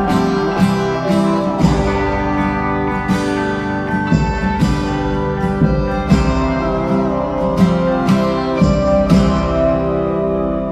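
Background music led by guitar, with held tones and a regular beat.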